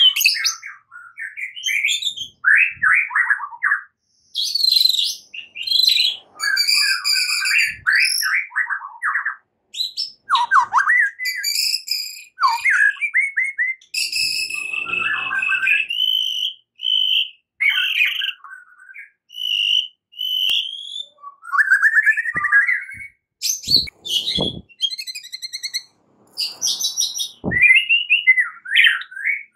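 White-rumped shama singing a varied song: short phrases of rich whistles, fast trills and rapid high chatter, separated by brief pauses, with one longer held whistle about halfway through.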